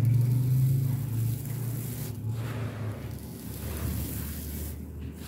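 Hands crushing and crumbling dry, dusty sand shapes: a grainy crunching rustle with short pauses, over a low steady rumble.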